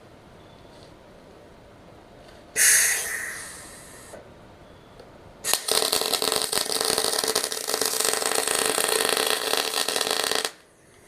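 Steel being arc-welded: a short loud burst about two and a half seconds in that fades away, then about five seconds of steady crackling weld bead that stops abruptly near the end.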